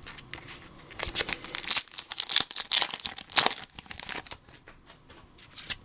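Foil booster-pack wrapper being torn open and crinkled by hand: a run of crackling tears and rustles starting about a second in, dying away after about four seconds, with one last small crinkle near the end.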